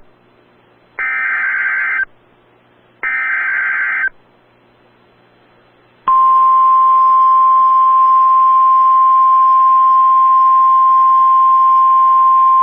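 NOAA Weather Radio Emergency Alert System SAME header data bursts: two harsh, buzzy digital bursts of about a second each, two seconds apart. About six seconds in, the Weather Radio warning alarm tone starts, a loud steady single-pitch tone, signalling that a new warning message is about to be read.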